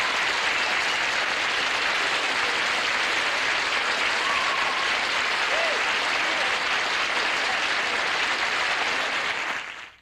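Studio audience applauding, an even wash of clapping that fades out quickly near the end.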